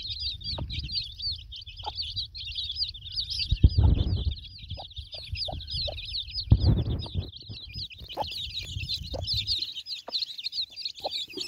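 Chicks peeping all together in a dense, unbroken high chorus, with short low clucks from the broody mother hen as she feeds them. Two louder low rumbling bursts come about four and seven seconds in.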